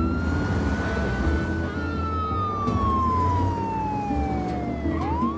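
Police car siren wailing: its pitch holds high, then slides slowly down over about four seconds and rises again near the end, over background music with low held notes.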